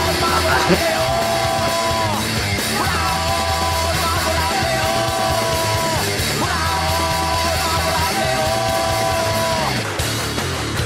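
Rock music: a singer holds long notes in phrases of about two seconds over the band, and the singing stops near the end.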